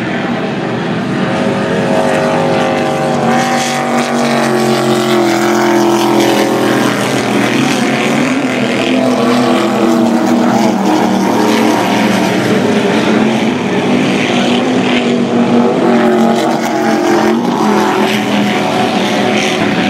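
Offshore racing powerboat engines running at speed, several engine notes overlapping and rising and falling in pitch as the boats pass.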